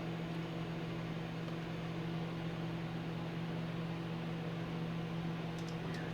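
Microwave oven running, a steady hum over fan noise, with a few faint ticks near the end.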